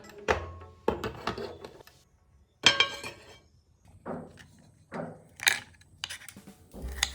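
Dishes and utensils knocking and clinking in a kitchen, several separate clatters, the loudest about three seconds in.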